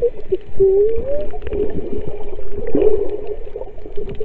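A woman singing through her snorkel underwater, her voice muffled by the water. She holds a note and slides upward in pitch about a second in, with low thumps beneath.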